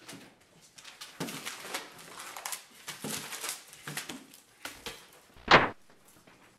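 Two people scuffling: irregular rustling, knocks and bumps, with one loud thump about five and a half seconds in.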